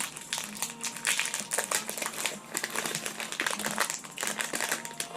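Plastic packaging crinkling and crackling as it is handled and opened, a dense run of irregular crackles.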